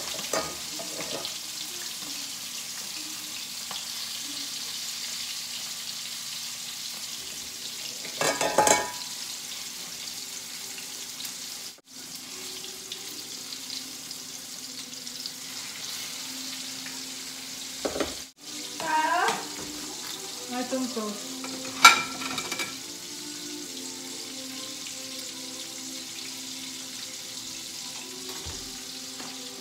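Breaded chicken frying in hot oil in a wok: a steady sizzle throughout. A few short clatters break in, the sharpest about two-thirds of the way through.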